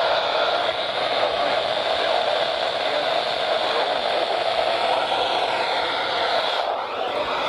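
Steady static hiss from a weather radio receiver with no voice on the channel, dipping briefly near the end.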